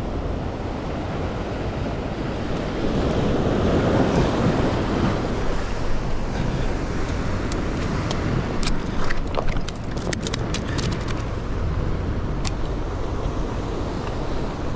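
Wind buffeting the microphone over the wash of sea surf on rocks, with a wave surging louder about three to five seconds in. In the middle a scatter of sharp clicks and ticks sounds over the rush.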